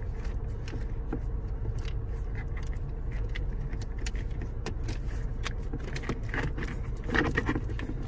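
Small clicks and light plastic rattles as a USB charger cable is fed through the opened centre console behind the dash, over a steady low hum.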